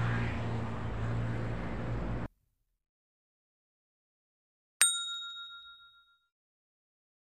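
Steady outdoor background rumble that cuts off abruptly about two seconds in. After a silence, a single bright ding, a notification-bell sound effect, rings out and fades over about a second.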